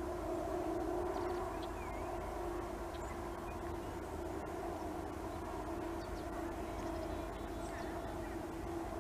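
Outdoor background: a steady, unchanging mechanical hum over a low rumble, with faint, brief bird chirps here and there. The grooming rabbit itself makes no sound that stands out.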